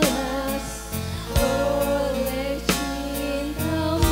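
A song playing: a singer's melody over accompaniment with a steady beat of about two hits a second.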